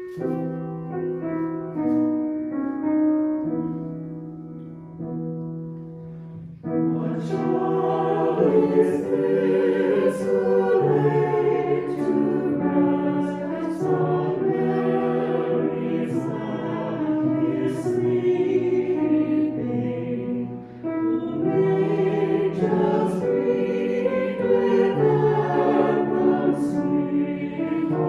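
A choir singing a hymn with instrumental accompaniment. The piece opens with about six seconds of held instrumental chords before the voices come in.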